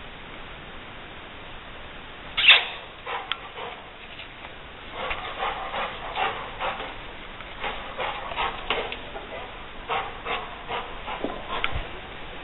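Rottweiler giving short barks and yelps: one loud, sharp call about two and a half seconds in, then from about five seconds on a run of quick calls, several a second.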